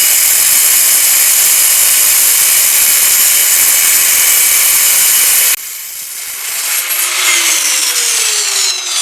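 Electric power tool running against metal with a steady, high-pitched grinding hiss. It cuts out about five and a half seconds in, then starts again with its pitch sliding slowly down toward the end.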